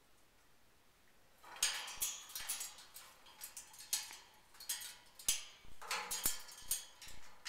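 Irregular clicks, scrapes and rattles of an Eclectus parrot climbing about her metal wire cage, beak and claws knocking on the bars, starting after a quiet second and a half.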